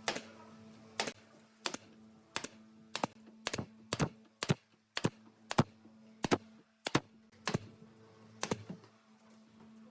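A series of sharp taps or knocks, unevenly spaced at roughly two a second, over a steady low hum.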